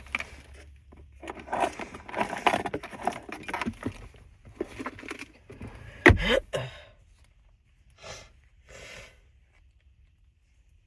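A person's rough, noisy breathing and nose sounds for a couple of seconds, then a single sharp stifled sneeze about six seconds in, the loudest sound. Two short sniffs follow.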